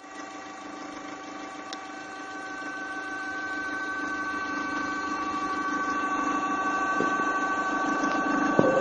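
Opel Astra G's X16XEL 1.6-litre 16-valve four-cylinder engine idling, with a steady hum of several fixed tones from under the bonnet, growing gradually louder; the owner suspects the water pump. A small click about two seconds in and a short knock near the end.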